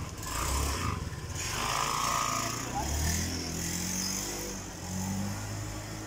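Honda automatic scooter's small engine running as it pulls away on a test ride, its note rising and falling from about halfway through.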